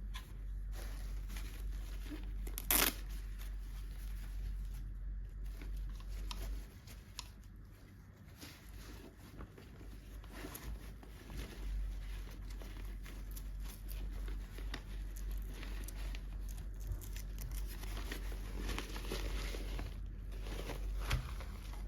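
Packaging being torn open and crinkled by hand, with scattered small crackles and clicks and one sharp click about three seconds in.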